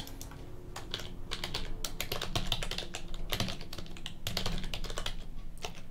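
Typing on a computer keyboard: a quick, uneven run of key clicks.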